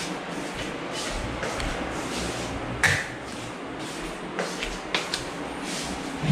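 A wall light switch clicking off about three seconds in. Around it are steady room hiss, a few smaller clicks and knocks, and a dull thump at the end.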